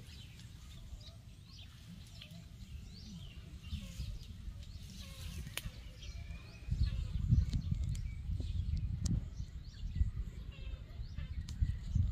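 Small birds chirping repeatedly in the trees. From about seven seconds in, a louder, uneven low rumble sets in, with a few sharp clicks scattered through.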